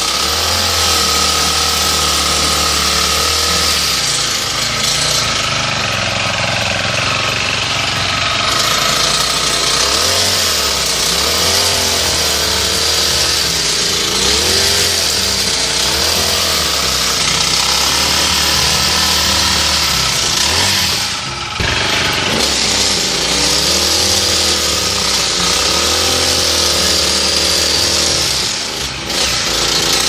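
Honda GX35 four-stroke engine of a multi-tool running at working throttle, driving a pole hedge trimmer attachment against vines. The engine speed wavers, dipping briefly about two-thirds of the way through and again near the end.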